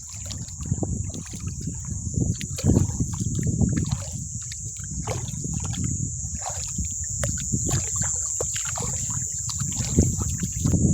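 Water sloshing and splashing irregularly as someone wades through a shallow reservoir, with small knocks, over a steady high-pitched hum.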